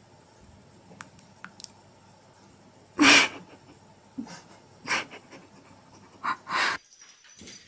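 A few faint clicks, then four short breathy, hiss-like bursts, the first about three seconds in and the loudest.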